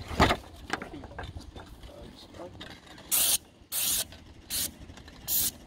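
A short knock just after the start, then an airless paint spray gun spraying roof coating in four short hisses, each about a third of a second long, spaced roughly half a second to a second apart in the second half.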